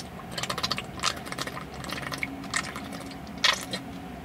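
A person gulping water from a thin plastic water bottle in a quick string of swallows, with the plastic crackling as the bottle is squeezed empty.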